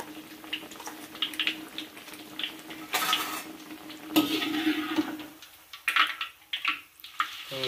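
Battered tempe slices frying in hot oil in a wok, a steady sizzle, with a metal spatula scraping and clinking against the wok as the pieces are moved and lifted; the loudest scrapes come about three and four seconds in. A steady low hum runs underneath and fades about five seconds in.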